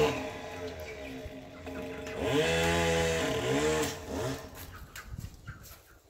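GoPed scooter's small two-stroke engine moving away. It revs up and back down twice about two to four seconds in, then fades as it gets farther off.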